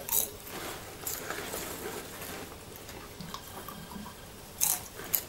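Popcorn being eaten out of its bag: rustling of the bag and crunching, with a few sharp crackles, the loudest near the end.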